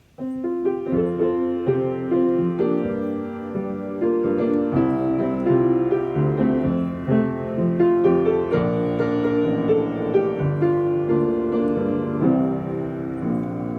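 Piano playing the instrumental introduction to a song, a sequence of chords and melody notes.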